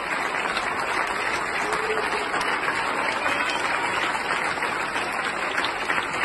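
Large audience applauding steadily, dense and sustained clapping from many hands.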